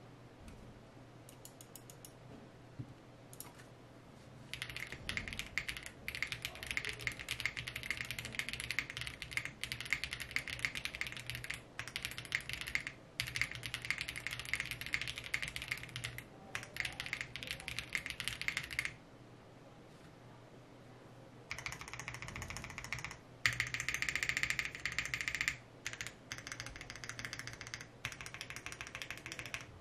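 Typing sound test on a Zoom65 V2 mechanical keyboard built with Wuque Studio (WS) Red switches, a polycarbonate plate, taped PCB flex cuts and double-shot PBT cherry-profile keycaps. A few scattered keystrokes, then fast runs of typing with short breaks, a pause of about two seconds past the middle, and more typing to the end.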